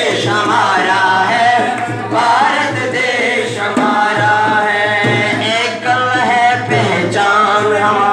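A song playing: singing over a steady drum beat, about two beats a second.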